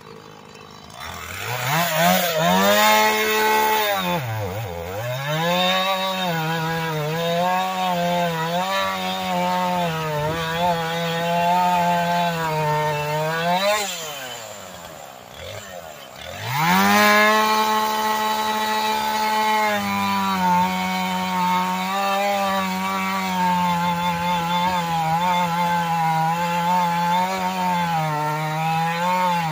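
Husqvarna 450 X-Torq two-stroke chainsaw revving to full throttle and cutting through wood under load, its engine pitch sagging and recovering as the chain bites. About fourteen seconds in it drops back toward idle for a couple of seconds, then revs up again and keeps cutting.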